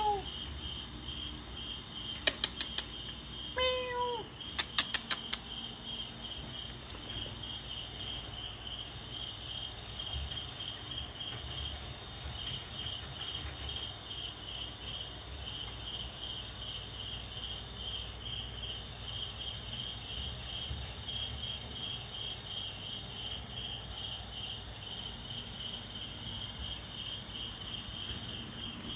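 Cricket chirping steadily, a high pulsing trill, with a kitten meowing once about four seconds in. Two short runs of sharp clicks come around two and five seconds in.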